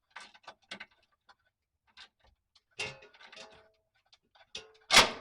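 Scattered light metallic clicks and clinks of tools and hardware during work under a vehicle, then one loud sharp bang near the end as a part slides off. Nothing snapped.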